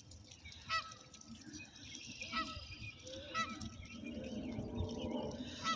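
Canada geese honking: four short honks spaced a second or two apart.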